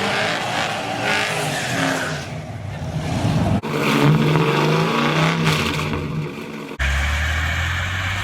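Motor vehicle engine and driving sounds, cut abruptly twice into three short pieces.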